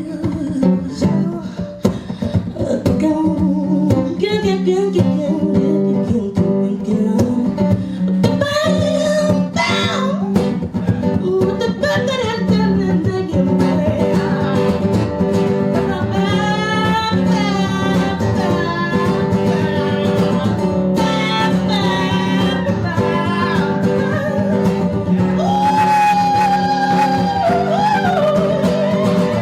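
Live blues song in an instrumental break: a band plays under a lead guitar line with bent notes that grows more prominent over the second half.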